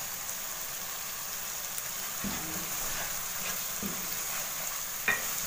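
Onion and ginger-garlic paste sizzling in hot oil as a wooden spatula stirs in powdered spices, with a few soft scrapes of the spatula against the pan from about halfway through.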